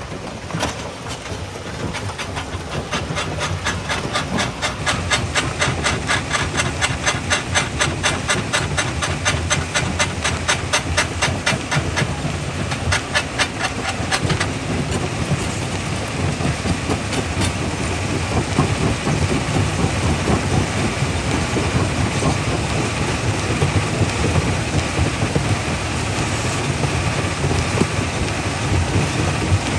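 Primary jaw crusher crushing quarry rock: rapid, even clattering knocks several times a second over a heavy low rumble, changing about halfway through to a steadier rumbling grind.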